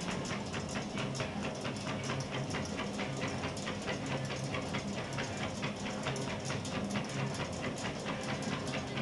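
Treadmill running with a medium-sized dog trotting on the belt: a steady low hum under a fast, even clatter of paw and nail strikes, about five a second.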